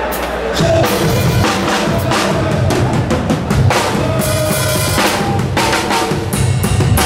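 Drum kit played live with rapid kick, snare and cymbal hits, starting about half a second in.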